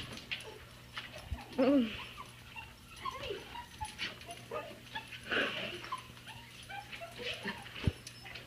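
Dogs whining and whimpering in many short rising and falling cries, the excited whines of dogs greeting their returning owner, with a few soft thumps.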